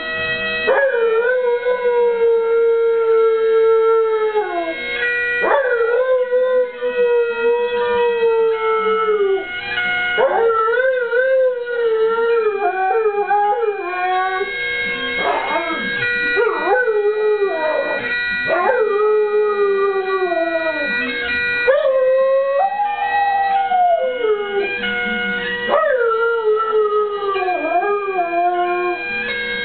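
A sled dog howling along to bagpipes: a string of long, wavering howls, each several seconds long and sliding down in pitch at the end. Under the howls run the steady drone and chanter notes of the pipes.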